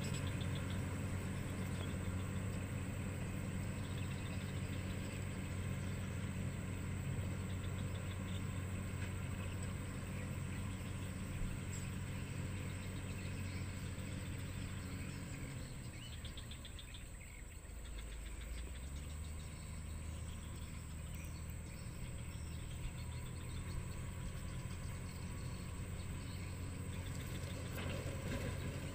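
Diesel engine of a Caterpillar 120H motor grader running steadily while it grades a dirt road. About two-thirds of the way through the engine note drops away and shifts in pitch, then comes back and grows louder as the grader approaches.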